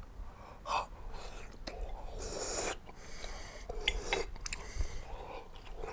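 A man chewing a mouthful of hot braised red pepper, with short puffs of breath through an open mouth because it is too hot, and a few small mouth clicks.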